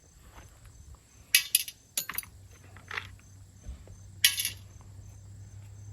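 Sharp metallic clinks and clanks, about six separate strikes, from bolts and tools being handled on a large electric motor as it is taken apart.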